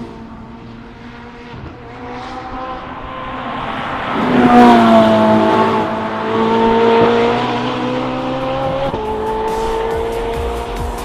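Ferrari 458 Italia's V8 engine at high revs under hard acceleration, swelling in and loudest about four to five seconds in. The revs climb, then drop suddenly at an upshift about nine seconds in.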